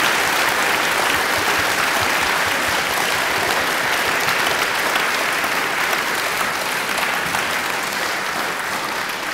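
Audience applauding: steady, dense clapping that eases a little toward the end.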